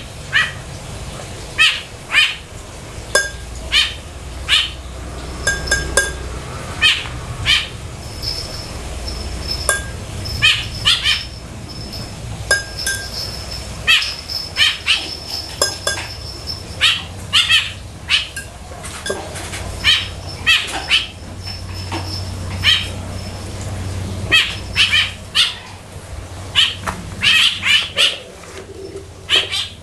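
Small birds chirping: short, sharp, high chirps coming irregularly one or two a second, over a low steady hum.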